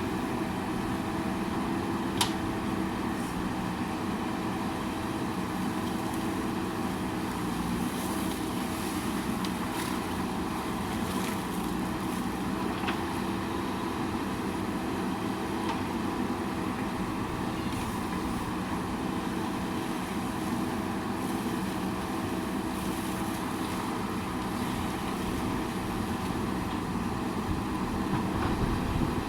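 JCB backhoe loader's diesel engine running steadily under work. A single sharp knock about two seconds in.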